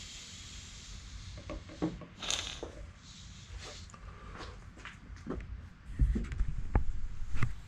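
Scattered small clicks and knocks of bolts and an Allen key being handled, with a stretch of low bumps and rubbing from about six seconds in.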